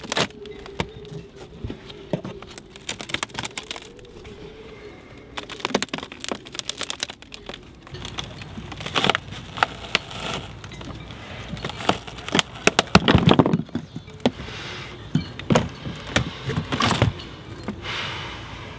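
Irregular clicks, scrapes and knocks of a hand tool prying up a cut-out section of fibreglass boat deck that is glued down with epoxy, with clusters of louder knocks about nine, thirteen and seventeen seconds in.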